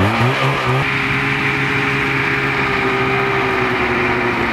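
Snowmobile engines revving up over the first second, then running at a steady pitch.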